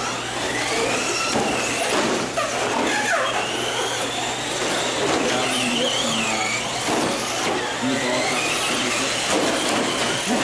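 Electric motors of several Traxxas Slash radio-controlled short-course trucks whining as they race, the pitch rising and falling as they speed up and slow down.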